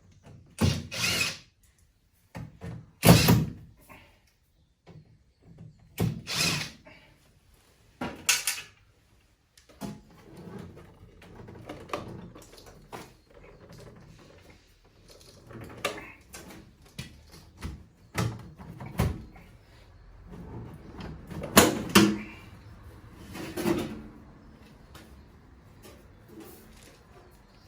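The metal casing and combustion cover of a gas combi boiler being unscrewed and taken off. Several short loud bursts come in the first nine seconds, then quieter handling and clatter of the panels, with a couple of louder knocks about three-quarters of the way through.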